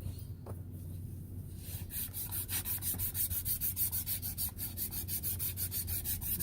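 Copper water pipe being sanded by hand with an abrasive, rubbing back and forth in quick, even strokes about five a second from about two seconds in, to clean the pipe before it is cut.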